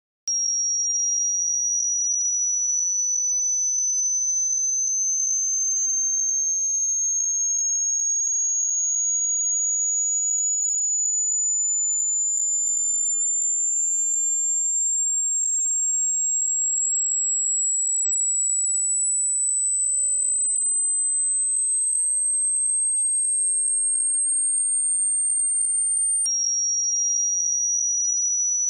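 A single high-pitched pure electronic tone imitating ear ringing (tinnitus), slowly rising in pitch, then dropping suddenly back down near the end and starting to rise again.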